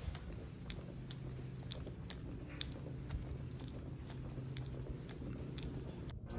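Faint handling noise: scattered light clicks and rustles over a low steady hum, as a hand-held camera is moved.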